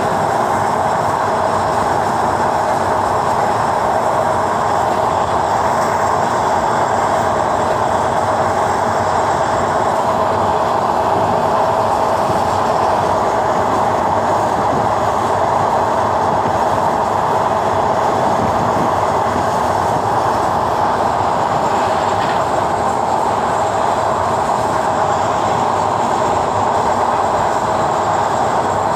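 Passenger train running across a steel-truss bridge's rail deck: steady, even wheel-on-rail running noise with no let-up.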